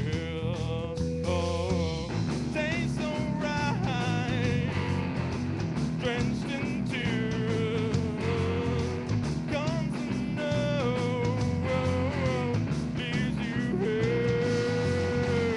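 A live band playing electric guitar and drums over a steady bass, with a wavering lead melody held on long notes.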